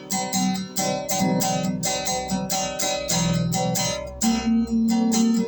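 Acoustic guitar strummed in a steady rhythm, an instrumental passage between sung verses; a held low note joins about four seconds in.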